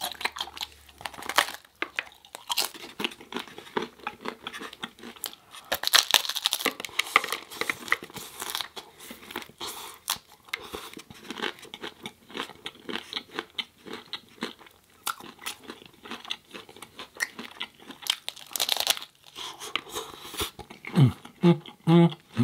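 Close-miked eating sounds: a person chewing and crunching food in irregular, rapid bites and crackles.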